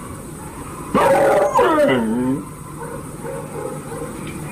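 A young German Shepherd with rabies, in the paralytic stage, gives one drawn-out whining howl about a second in, sliding down in pitch over about a second and a half.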